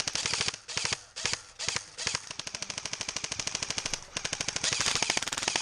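Airsoft guns firing on full auto: rapid, evenly spaced shots in several short bursts, then a long, nearly unbroken stream of fire that grows louder near the end.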